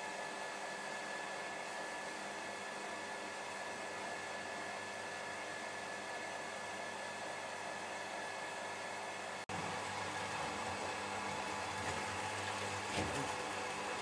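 Electric transfer pump running steadily, a hum with a hiss, as it draws fresh-pressed apple juice through a hose out of a tub. The sound drops out for an instant about two-thirds of the way through, then carries on a little louder.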